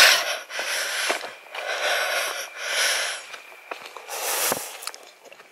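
A walker's heavy breathing, about five breaths in and out at roughly one a second.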